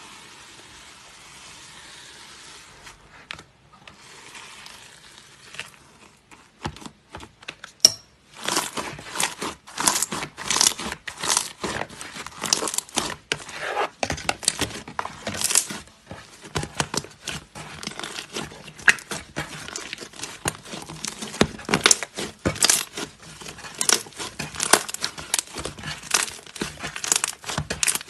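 Slime being worked by hand. A soft steady rustle for the first few seconds, then from about eight seconds in a dense run of sharp crackles and pops as it is squeezed and pressed.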